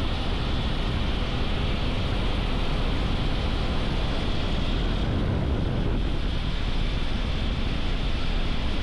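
Wind rushing over the microphone of a rider on a Hero XPulse 210 motorcycle, with the bike's engine and road noise underneath, steady at an even level.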